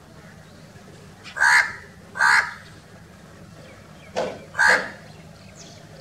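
House crow cawing: four harsh caws in two pairs, the third softer than the others.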